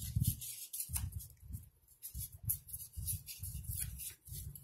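Cardboard egg carton pieces being handled and cut, giving irregular rustling and soft knocks with a few sharp clicks.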